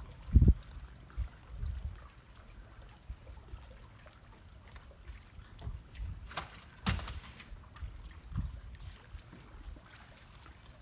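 Gusts of wind rumbling on the microphone over faint water lapping, with two sharp clicks a little past the middle.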